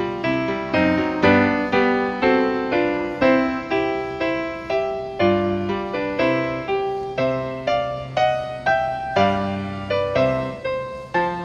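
Background piano music: a steady stream of struck notes, each one fading away, several a second.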